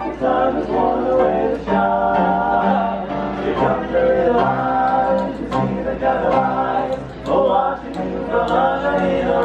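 Music: a group of voices singing in harmony, holding notes and moving together from chord to chord.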